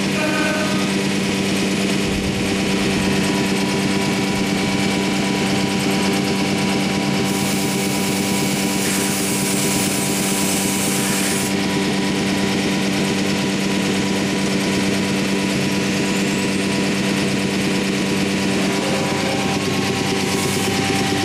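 Anderson Stratos Pro CNC router running with a steady machine hum. A hiss lasting about four seconds comes near the middle.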